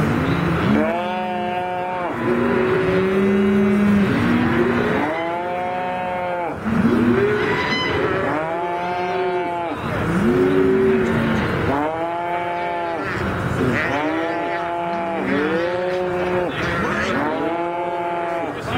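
Calves bawling over and over, several at once with calls overlapping, each call rising and falling in pitch over about a second, some higher and some lower-pitched.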